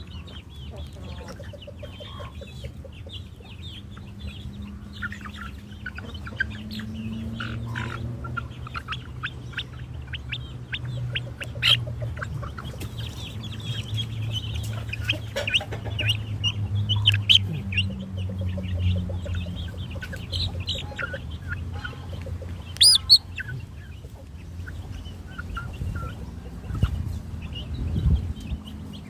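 Chickens clucking, with many short high chirps and calls and a louder sharp call about two-thirds of the way through, over a low hum that slowly rises and falls in pitch.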